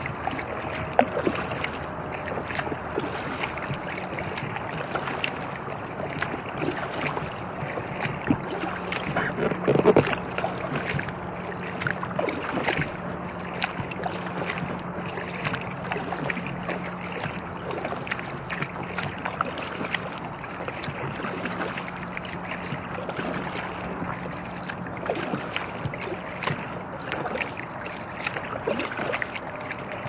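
Paddle strokes splashing and dripping beside an inflatable kayak, with wind on the microphone. A low steady hum, like distant highway traffic, runs through the middle.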